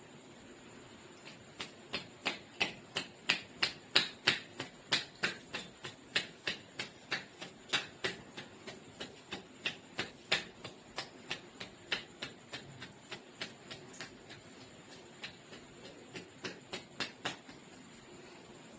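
Hands slapping and tapping rhythmically on the head during a head massage: sharp slaps about three a second, with a short break and a last quick run near the end.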